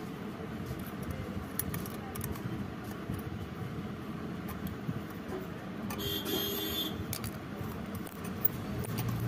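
Small metallic clicks and scrapes of a screwdriver and fingers working the terminal nuts on an electric iron's heating-element posts, over a steady low background hum. About six seconds in there is a brief higher-pitched squeal with several tones.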